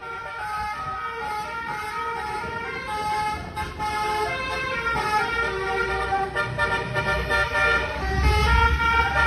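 Modified Hino 500 truck's multi-tone horns sounding a changing run of notes, several tones at once. Under them a low engine rumble grows louder near the end.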